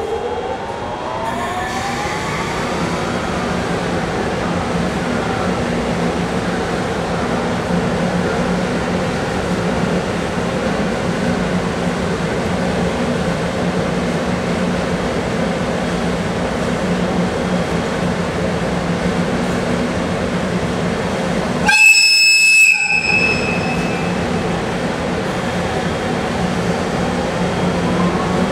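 A train standing at the platform with a steady running hum, with a rising whine in the first few seconds. About 22 seconds in comes one short, shrill whistle blast from the EF64 electric locomotive, lasting about a second: the departure whistle.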